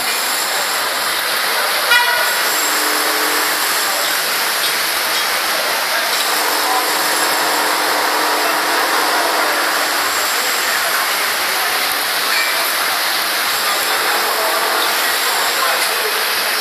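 Steady rushing hiss of water on a flooded town street, with cars driving slowly through the floodwater. A sharp click about two seconds in.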